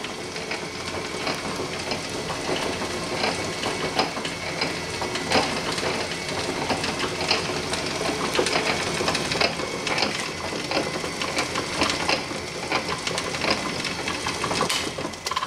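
Atlas 7B metal shaper running empty, no work mounted: a steady mechanical run from the drive with repeated light clacks and clatter as the ram strokes back and forth. It cuts off at the very end when switched off.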